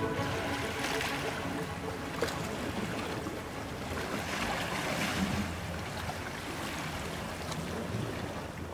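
Small sea waves washing and lapping against a rocky shore, in irregular gentle swells.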